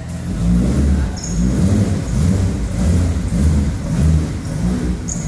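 BMW E36 M3's straight-six engine revving as the car pulls away at low speed. The loud, low engine note rises and falls in quick pulses.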